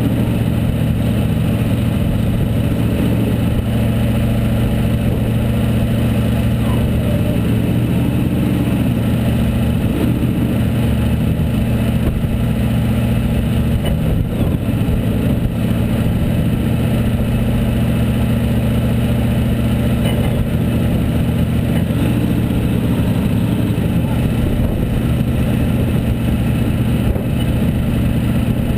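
Off-road rock crawler engine running steadily at low revs, a constant low drone with small shifts in pitch as the vehicle crawls over rocks.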